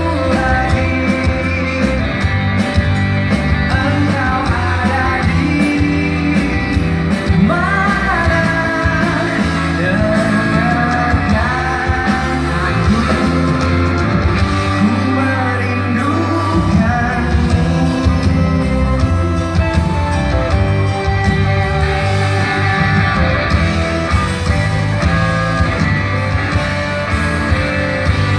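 A live band playing a song, with singing over electric guitar, bass and drums, heard from the audience seats of a large concert hall.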